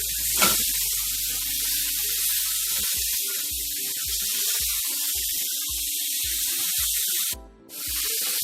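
T-bone steaks sizzling in a frying pan, a steady hiss with a click about half a second in. From about three seconds in, a low pulse comes roughly twice a second. The sound drops out briefly near the end.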